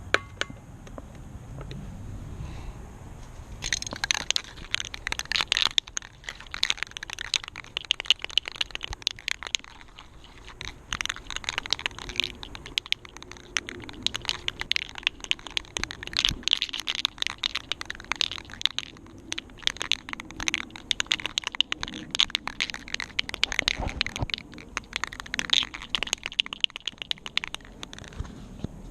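Masking tape and covering material being handled: irregular crinkling and crackling as the tire is masked off before priming. The crackles start about four seconds in and carry on densely.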